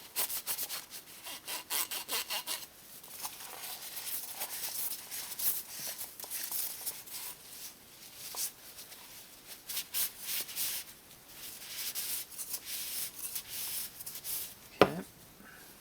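Shop rag wiping oil off the oil filter cap, a run of rubbing strokes, with one sharp knock near the end.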